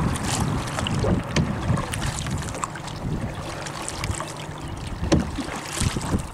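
Canoe paddle strokes in lake water, with short splashes and drips off the blade, over wind on the microphone.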